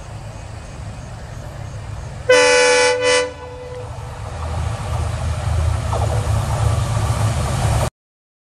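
EMD-type diesel locomotive approaching with its engine running, sounding its horn in two short blasts a little over two seconds in, the second shorter. The engine rumble grows louder as it nears, then cuts off suddenly near the end.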